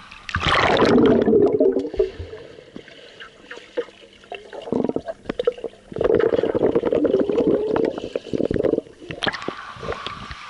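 A splash about half a second in as a child jumps into a swimming pool, followed by muffled bubbling and gurgling heard from under the water. A second loud stretch of underwater bubbling comes about six seconds in and lasts about three seconds.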